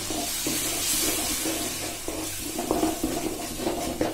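Blended tomato puree poured into hot oil and masala paste in a kadai, sizzling with a steady hiss, while a wooden spatula stirs and scrapes the pan with short knocks in the second half.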